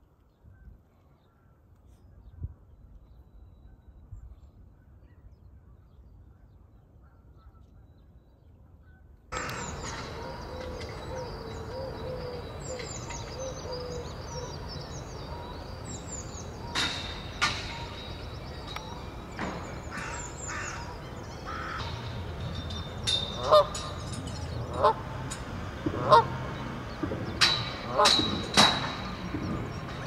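A faint low rumble, then a fuller outdoor background with small birds chirping. From about 23 s on, Canada geese honk repeatedly and loudly.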